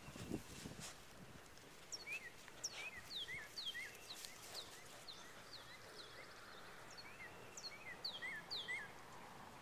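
A songbird singing outdoors: a run of quick, high chirps that slide downward in pitch, often in pairs, starting about two seconds in, over faint steady outdoor background noise.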